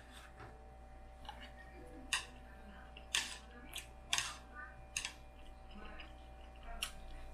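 Eating sounds: metal chopsticks clicking against a plate, and black-bean noodles being slurped and chewed, in a scatter of sharp clicks and short slurps.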